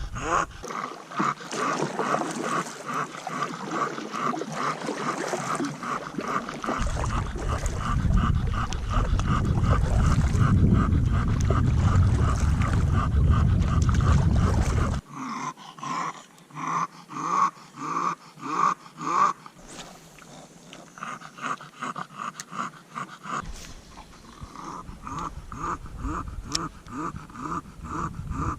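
A bulldog panting heavily and rhythmically, a few breaths a second, with a low rumble underneath for several seconds midway.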